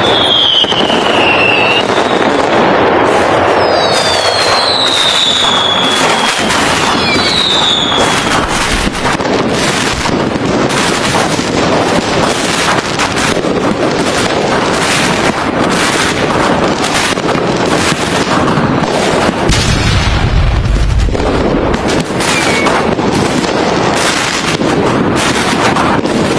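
A dense fireworks barrage: rapid crackling and banging bursts one after another. Three falling whistles sound in the first several seconds, and a deep boom comes about twenty seconds in.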